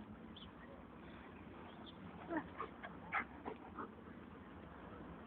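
Dogs at play giving a quick run of about six short, high-pitched yelps and whines about halfway through.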